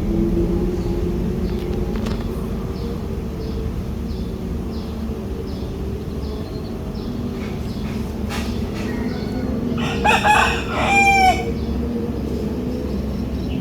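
A rooster crowing once, about ten seconds in: a crow of roughly a second and a half, in two parts. Under it runs a steady low rumble, with faint regular high chirps before the crow.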